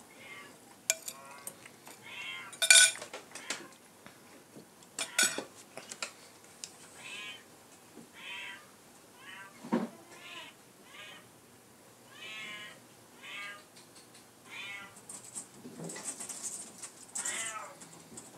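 A cat meowing over and over, a dozen or so short meows about a second apart. A few sharp clinks of a spoon and fork on a plate come in the first few seconds.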